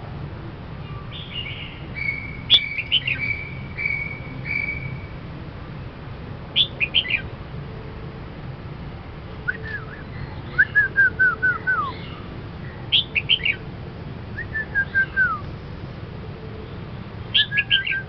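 Red-whiskered bulbul singing: short, bright song phrases every few seconds, several ending in a quick run of falling notes.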